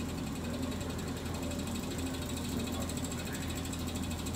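Steady machine hum of a thermal protective performance (TPP) test apparatus running under its lab hood during the heat exposure of a turnout-gear composite.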